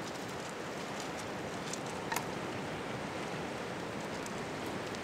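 Steady, even outdoor background hiss, with a brief faint click about two seconds in.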